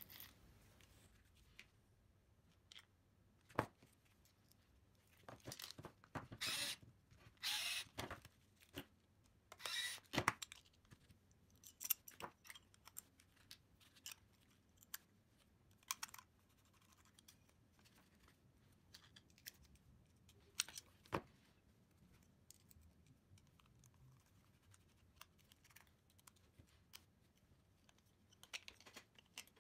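Scattered light clicks, taps and brief rustles of small metal parts being handled: screws, nuts, an Allen key and a metal motor plate being fitted to an RC car gearbox. The handling noises are busiest about six to ten seconds in.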